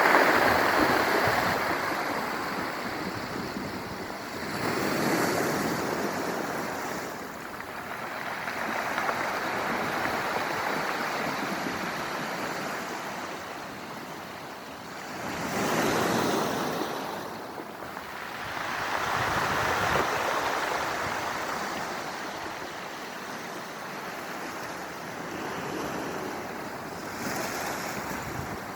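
Sea waves washing over a stone beach, rolling the stones, in slow surges that swell and fade every few seconds.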